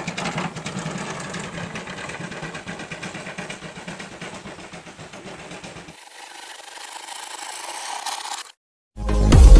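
Small engine of a turtle hand tractor running with a fast, steady firing rhythm. About six seconds in the sound turns thinner, losing its low end, and cuts out, and electronic music starts near the end.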